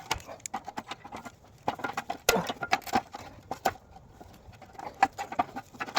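Irregular clinks and knocks of metal tools and parts being handled while an axle is being stripped, with the sharpest knocks about two seconds in and near the end.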